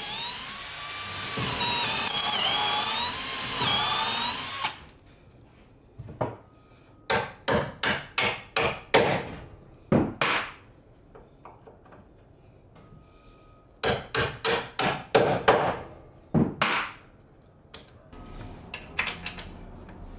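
Cordless drill driving a screw into wood for about five seconds, its motor whine wavering up and down with the load. Then two runs of quick, sharp hammer blows on timber, about eight to ten strikes each, a few seconds apart.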